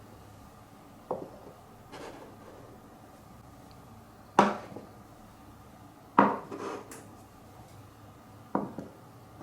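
Glass marbles clacking and dropping through a wooden Cuboro marble run: sharp single knocks at irregular intervals, five main ones, with short rattles as they roll on, the loudest about four and six seconds in.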